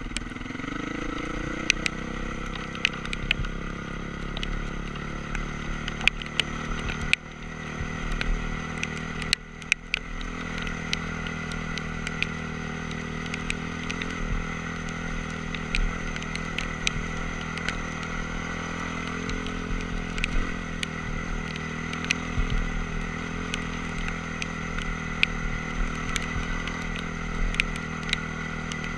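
Honda CRF450R dirt bike's single-cylinder four-stroke engine running at a steady, easy throttle as it is ridden gently. It rises in pitch over the first couple of seconds and eases off twice, briefly, about a third of the way through. Frequent sharp clicks and knocks sit over the engine.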